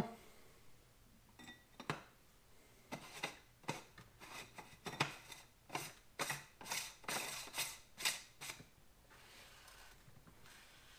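Metal end cap being worked onto the open end of a Canton Accusump oil accumulator cylinder: a run of short scrapes and clicks of metal on metal, thickest from about three to eight and a half seconds in.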